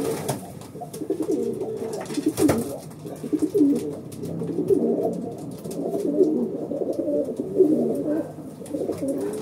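Racing pigeons cooing in the loft, several birds' coos overlapping without a break. A sharp click near the start and another about two and a half seconds in.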